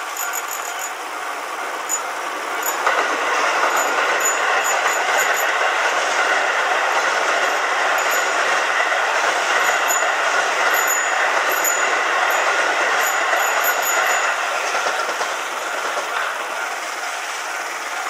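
Keio Line electric commuter train passing over a level crossing. Its running noise swells up about three seconds in and dies away near fifteen seconds. The crossing's warning bell rings steadily throughout.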